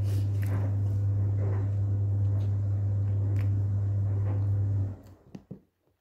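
A steady low hum that stops suddenly about five seconds in, with faint crinkling and clicking as a food wrapper is picked open and the food is chewed.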